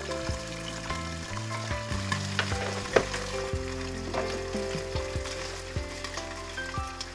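Two eggs frying in oil in a covered pan, a steady sizzle with scattered pops, the loudest about three seconds in. A soft tune of held notes plays underneath.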